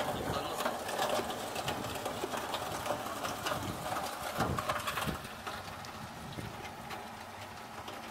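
Gold shaker table running, its reciprocating drive making a rapid mechanical clatter that eases off a little about five seconds in.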